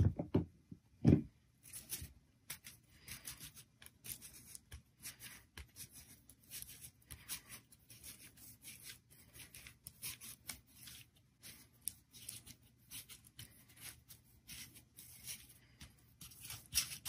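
Green crepe paper crinkling and rustling in quick, irregular bursts as a strip is wrapped around a paper flower stem, with two dull thumps in the first second or so.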